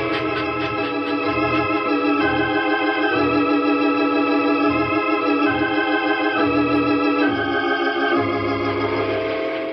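Organ music bridge: a run of sustained chords that change every second or so, marking a scene change in the radio drama. It fades down near the end.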